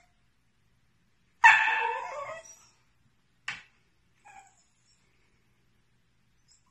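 Whippet puppy giving one loud yelping bark about a second and a half in, then a short sharp yip two seconds later and a faint whimper just after.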